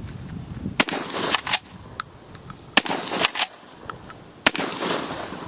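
Three shots from a Remington 887 pump-action 12-gauge shotgun firing buck-and-ball shells (a one-ounce slug with six double-aught buckshot), about two seconds apart. After each of the first two shots there are two short sharp clacks as the pump is racked.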